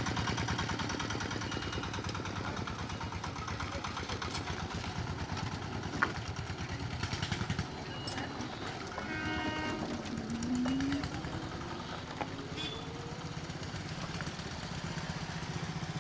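Motorcycle and other small road-vehicle engines running as traffic crosses the tracks, a steady rapid low pulsing throughout, with a brief pitched sound about nine seconds in.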